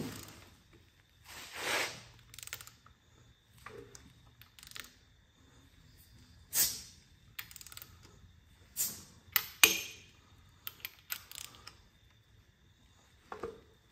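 Scattered short clicks, taps and rustles from hands handling parts and a plastic bottle around a bare small-block Chevy engine, the sharpest clicks coming about ten seconds in.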